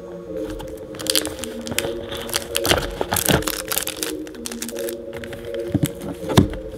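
Hands handling a smartphone's retail packaging: the phone is lifted out of its cardboard box and the paper insert is moved, giving a run of small clicks, taps and crinkles. A steady low tone runs underneath.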